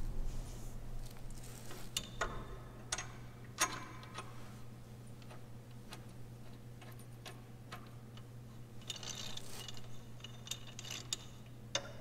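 Small metallic clicks and clinks of a sway bar quick-disconnect link and its bolt being handled and threaded by hand into the mount, a few scattered ticks with a busier patch near the end, over a steady low hum.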